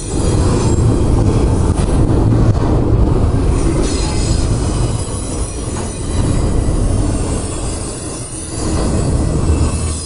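A double-stack container train's well cars roll past close by, with a heavy steady rumble of steel wheels on the rails. A faint high-pitched wheel squeal runs above the rumble, and the noise eases briefly a few times as the cars go by.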